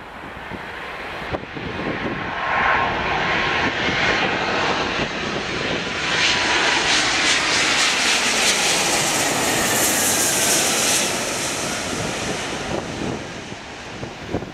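A Boeing 777's twin turbofan engines on final approach, passing low overhead. The jet roar builds, peaks while the aircraft is overhead with a whine that drops in pitch as it goes by, then fades as the aircraft flies away.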